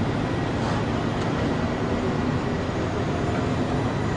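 Steady droning machine noise with a low hum and a faint high thin tone, holding level throughout.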